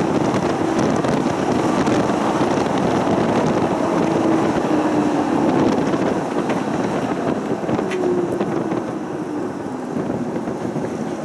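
Tram running along its track, heard from inside the car: a steady rumble from the wheels and running gear with a faint wavering hum, getting a little quieter near the end.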